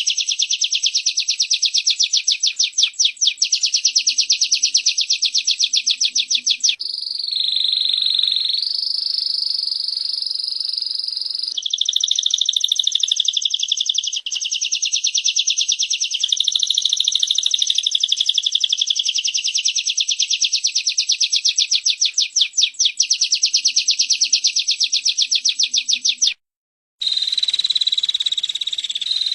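Female prinia (prenjak) giving its dry, rapid buzzing trill, a 'cret-cret' note repeated many times a second, with a smoother buzzing stretch about a third of the way in. The sound cuts out for a moment near the end, then resumes as a steadier buzz.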